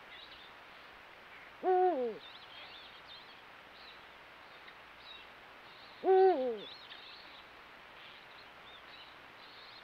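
Eurasian eagle-owl hooting: two deep hoots about four seconds apart, each falling in pitch at the end.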